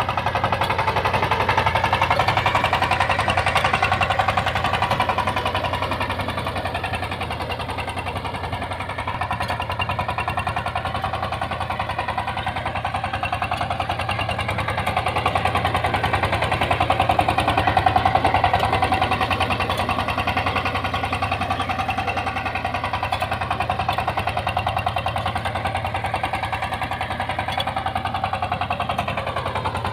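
Kirloskar Mega T12 power tiller's single-cylinder diesel engine running under load while ploughing, a fast steady chugging whose pitch and loudness drift gently up and down.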